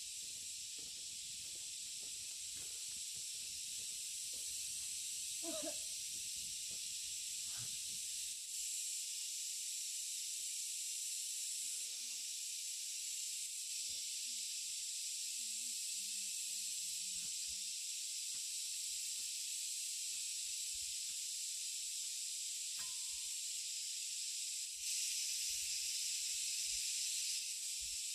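Steady, high-pitched insect chorus filling the air, with a thin shrill tone inside it, swelling louder for a few seconds near the end. Faint scattered knocks and rustles come and go underneath.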